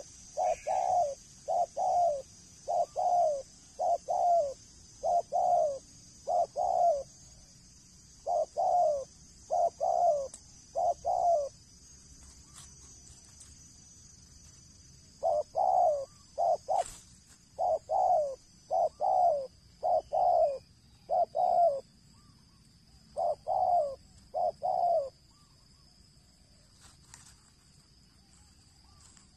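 Male spotted dove cooing: short, repeated coos in runs of several notes, with gaps of a few seconds between the runs. A steady faint high drone sits underneath.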